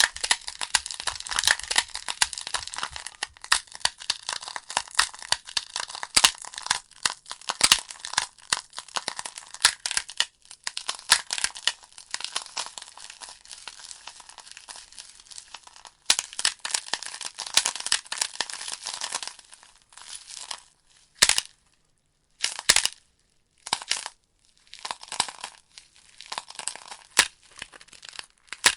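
Logs burning in a fireplace: a dense fizzing crackle full of sharp pops and snaps. About two-thirds of the way through it drops to a few isolated pops with brief silent gaps, then the steady crackling returns.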